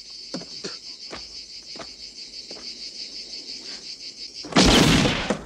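Insects chirping in a steady, fast pulsing drone, with a few faint knocks under it. About four and a half seconds in, a sudden loud rush of noise covers it.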